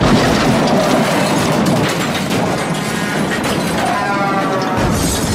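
Loud, dense sound-effect mix for an animated logo outro: continuous crashing, rumbling noise, with a pitched whine entering about four seconds in.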